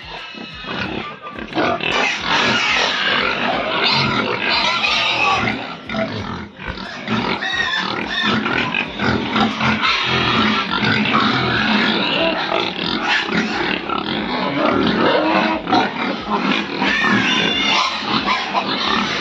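Many farm pigs squealing together in their pens: a loud, dense run of overlapping squeals with no break.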